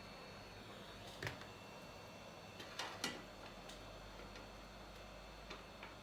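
A few short, sharp clicks and taps of small metal tools against an iPhone 8 Plus housing during a rear glass repair: one about a second in, a pair around three seconds, and two lighter ones near the end, over a faint steady hum.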